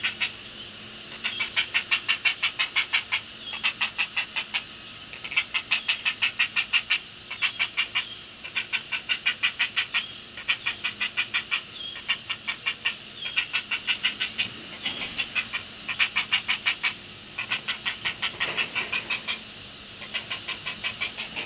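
Great blue heron nestlings giving their begging chatter: rapid clacking calls, about eight a second, in repeated bouts of a second or two with short pauses between.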